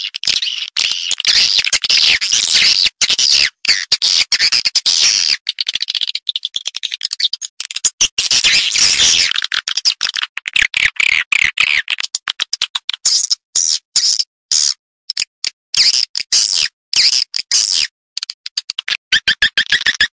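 Edible-nest swiftlet calls from a lure recording used to attract swiftlets into a nest house: rapid trains of high, twittering chirps, repeatedly cut off abruptly, with more frequent silent gaps in the second half.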